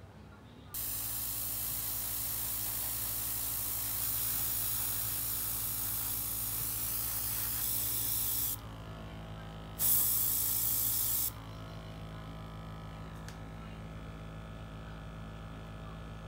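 KKMoon dual-action airbrush spraying paint: a steady hiss of air for about eight seconds, then a second short burst of about a second and a half. Underneath runs the steady hum of its mini compressor, whose tone changes when the spraying stops.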